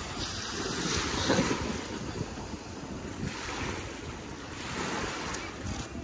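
Small sea waves washing onto a pebble beach, in swells every second or two.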